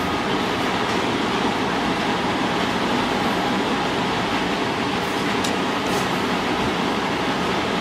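Seal-carving knife scraping and cutting into a soft stone seal, a steady gritty scratching with a couple of small clicks past the middle.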